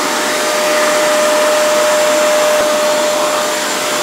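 Wet-and-dry vacuum cleaner running at full speed, a steady high motor whine over a rushing hiss of air, as it sucks water up off the floor into its tank.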